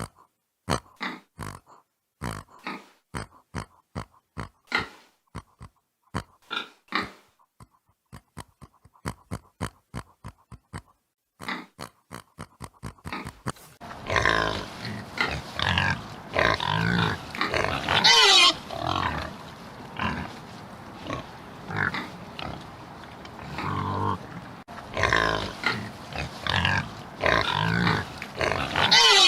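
Pig grunting in short, separate bursts, then from about halfway a louder, continuous stretch of pig grunting with a few high-pitched cries.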